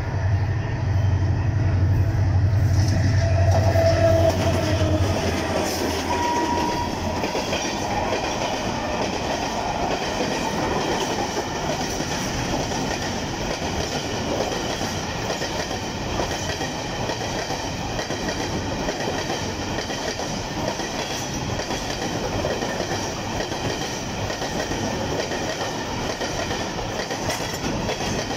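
A long freight train of covered wagons passes at speed close alongside on the adjacent track, its wheels running steadily over the rails. A low engine drone dominates the first five seconds or so, then fades under the wagons.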